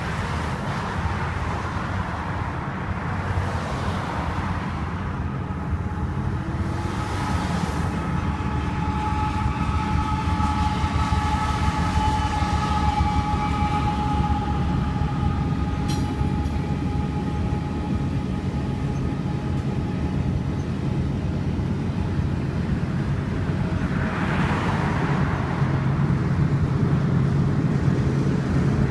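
Diesel-hauled passenger train rolling past: a steady rumble of locomotives and passenger cars on the rails, with a faint steady whine in the middle. A swell of rushing noise comes near the end.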